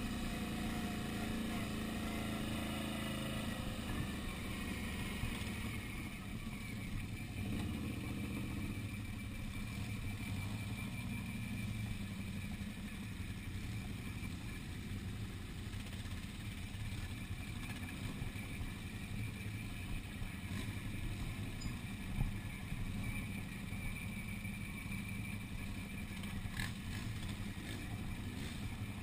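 Quad bike (ATV) engine running steadily at low trail speed on a rough dirt track, its note shifting a little with the throttle.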